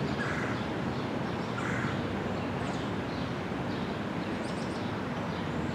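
Outdoor background ambience: a steady noise bed with faint, scattered short bird chirps.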